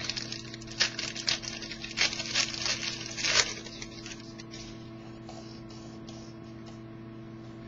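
A hockey card pack being torn open by hand, its wrapper crackling and rustling in a string of short bursts for the first three seconds or so, then only a steady electrical hum.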